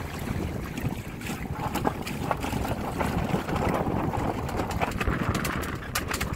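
Wind buffeting the microphone over water rushing and slapping against the hulls of a Windrider 17 trimaran under sail, with short splashy slaps throughout.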